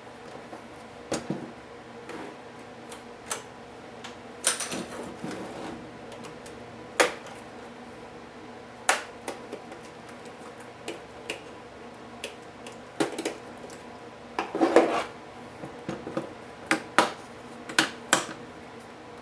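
Irregular clicks, taps and short scrapes of small plastic and metal laptop parts and tools being handled during a laptop teardown, with two brief rattling scrapes near the start and about three quarters of the way through.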